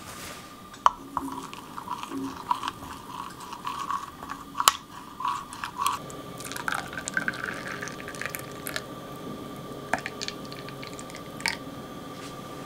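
Liquid poured from a glass beaker into a drinking glass, dripping and splashing, with small clinks of glass against glass. A faint steady high tone sits underneath.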